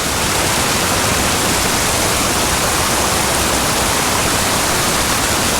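Small mountain creek rushing and splashing over rocks, a steady full hiss of running water.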